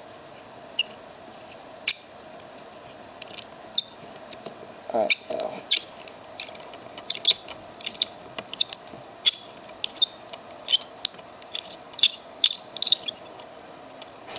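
Hand pin vise turning a 1/8-inch drill bit into a plastic miniature part: irregular small squeaks and clicks as the bit cuts and widens the hole, over a faint steady hum.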